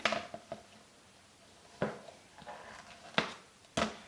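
Plastic lid of a toy building-block bucket being handled and pushed shut by a toddler: about five sharp, irregular plastic knocks and clicks.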